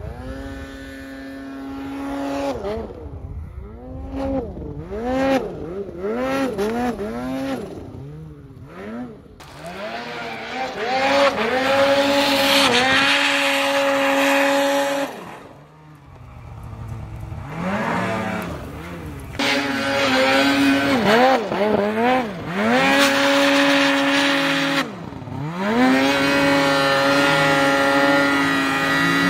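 Snowmobile engine revving hard in quick repeated blips, then held at high revs for several seconds at a time while the sled ploughs through deep powder snow. The revs drop away twice, once about halfway through and again a few seconds before the end, before climbing again.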